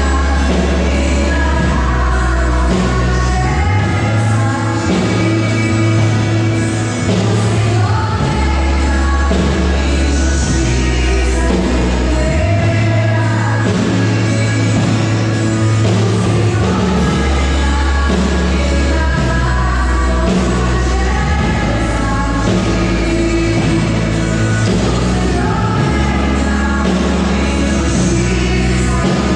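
Live church band playing a song with singing through the PA, the electric bass holding long low notes that change every few seconds.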